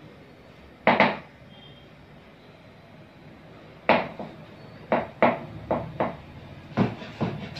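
Kitchen knife chopping vegetables on a cutting board. A couple of knocks come about a second in, then a run of sharp knocks starts about four seconds in, about two a second and growing quicker near the end.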